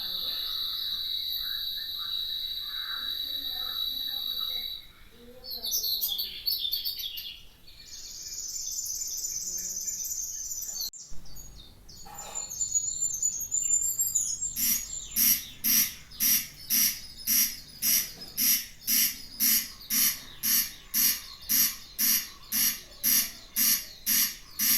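Birds calling over a steady high insect buzz; in the second half a loud call is repeated about twice a second, evenly.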